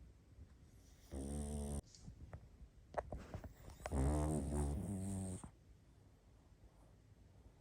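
Pug snoring in its sleep: a short buzzing snore about a second in, a few small clicks and snuffles, then a longer, louder snore about four seconds in.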